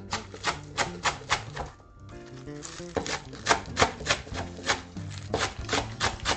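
Kitchen knife chopping green onions on a wooden cutting board: quick, even strikes about three a second, in runs with short pauses about two and five seconds in. Background music plays underneath.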